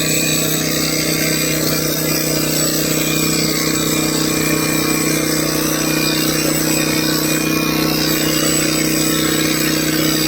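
A small motor running steadily, a constant even hum with no change in pitch.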